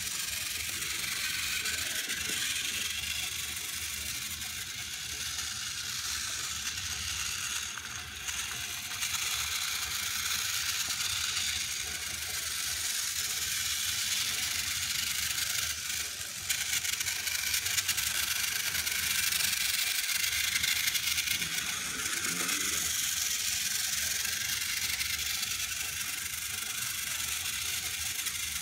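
Motorized Thomas toy trains running on plastic track: a steady whir of small battery motors and gears with the wheels rattling over the track, getting somewhat louder about halfway through.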